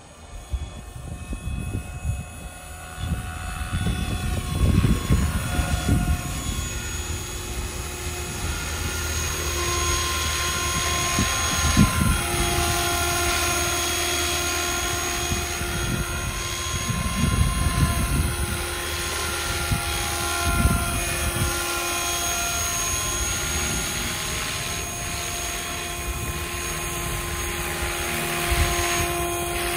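Radio-controlled model helicopter, an old Super Voyager E wearing an AS350 Écureuil scale body, flying: a whine from its rotor and drive whose pitch shifts as it manoeuvres. It grows louder over the first ten seconds as it comes in, then stays steady as it hovers and climbs overhead.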